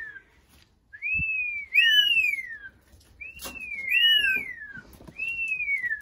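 A parrot whistling a rising-then-falling "whee" note again and again, about five times, some calls overlapping one another.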